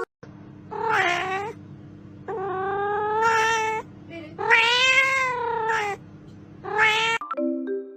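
A domestic cat meowing four times in long, drawn-out yowls, the middle two the longest, over a steady low hum that stops near the end.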